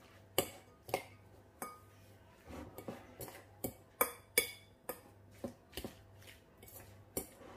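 Metal fork clinking against a glass mixing bowl as cottage cheese, egg and semolina are stirred and mashed, with irregular sharp taps one or two a second.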